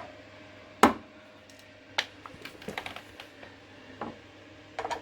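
Scattered sharp clicks and taps of a hand tool working a screw out of a machine's rear cover. The loudest comes about a second in, with a cluster of smaller ones in the middle.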